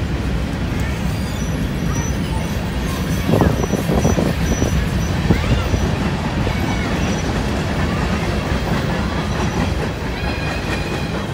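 Union Pacific freight train of covered hopper cars rolling past: a steady low rumble of steel wheels on rail, with a run of clacks over rail joints about three to five seconds in.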